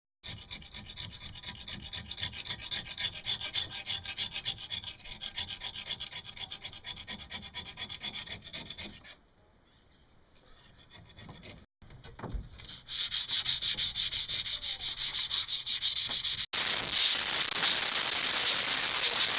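A knife blade scraping barnacles and marine growth off a bronze boat propeller blade in quick repeated strokes. It pauses about nine seconds in, then resumes louder.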